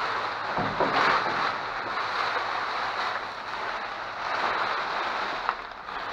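Rustling and crinkling of plastic bags and trash being handled in a dumpster, swelling and easing every second or so.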